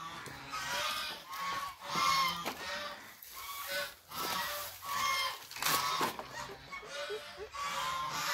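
A flock of farm ducks calling continuously: overlapping honking calls, about one or two every second.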